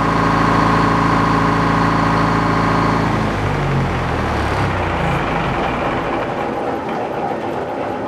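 Sawmill's power unit running steadily, then shut down about three seconds in, its pitch sliding down as it winds down. A steady rushing noise carries on after it.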